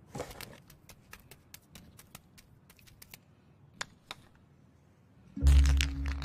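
Faint, irregular light clicks and taps, several a second, with one sharper tick a little before four seconds in. Near the end a much louder, low steady hum with a few held tones sets in suddenly.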